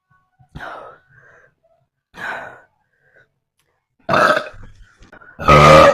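A young woman burping four times in a row, the last two burps the loudest and longest, the final one long and deep.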